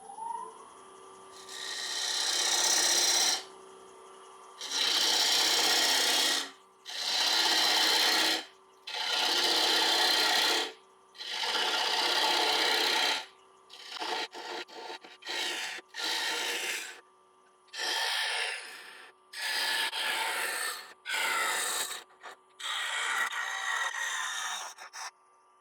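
Wood lathe spinning up with a rising whine, then a turning tool hollowing the inside of a wet black locust bowl blank in a series of cuts of a second or two each, shorter and quicker toward the end, over the lathe's steady hum.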